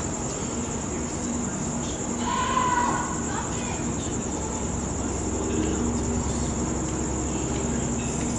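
Crickets chirring in a steady, high, rapidly pulsing drone over a low background rumble. About two seconds in, a short voice-like call rises briefly above it.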